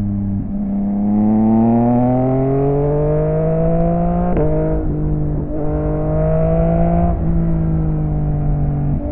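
Yamaha XSR900 inline-triple motorcycle engine through an aftermarket M4 exhaust, pulling hard with its pitch climbing. The note drops sharply at an upshift about four seconds in, climbs again, and shifts up again about seven seconds in before holding a steady note.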